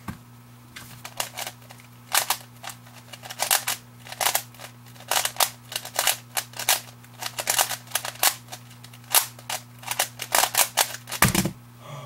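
Plastic 3x3 Rubik's Cube clacking in quick bursts of turns during a speedsolve, the layer turns coming several a second with short pauses between. Just before the end the clacking stops with a heavier thud as the solved cube is set down and both hands slap onto the timer pads to stop the timer.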